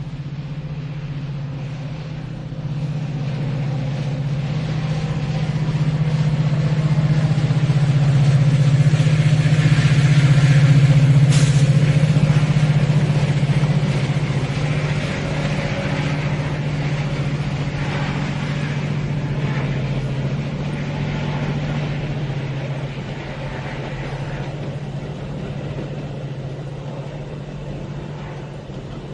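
A train passing with a steady low drone, growing louder to a peak about a third of the way through and then slowly fading. A brief sharp click sounds near the loudest point.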